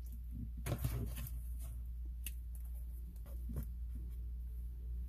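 Plastic-sleeved sticker packs and small paper pads being handled and set down on a desk: a cluster of crinkling and light taps about a second in, then a few single soft taps, over a steady low hum.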